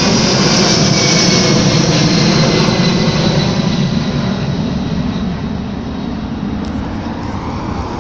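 Jet engines of a Delta Boeing 757-200 with winglets at takeoff power climbing out overhead: a loud roar with a high whine slowly dropping in pitch, fading gradually from about three seconds in as the jet pulls away.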